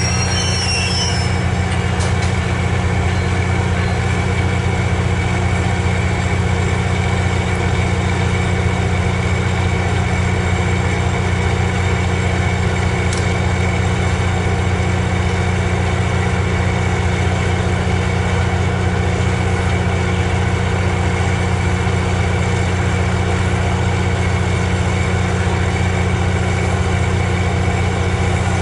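MARC commuter train's diesel locomotive idling while the train stands at the platform: a steady, unchanging low drone.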